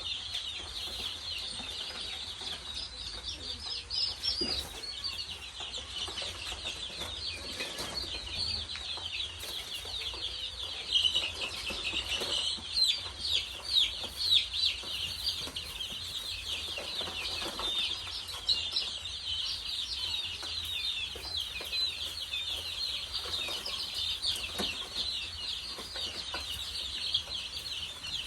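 A brood of chicks peeping continuously: many short, high calls overlapping, busiest about halfway through.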